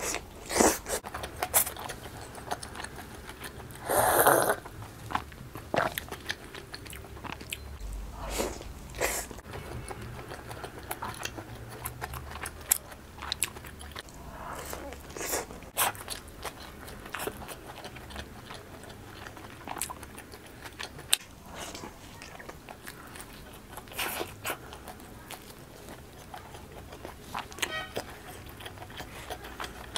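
Close-miked biting and chewing of pizza, a run of small irregular crunches and clicks from the crust, with one louder, longer sound about four seconds in.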